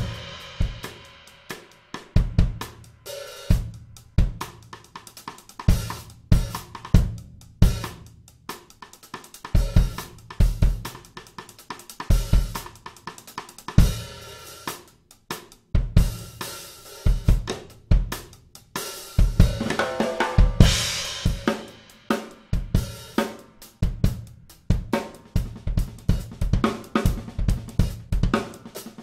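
Drum kit played in a steady groove featuring a Sonor Select Force 14x6.5 snare drum fitted with wooden hoops, with kick drum, hi-hat and cymbals; the cymbals swell louder about twenty seconds in.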